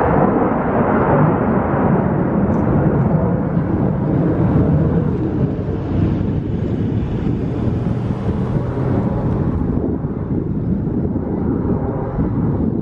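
Loud, continuous engine noise of an airplane flying overhead at an air show. It grows brighter around the middle and eases back about ten seconds in.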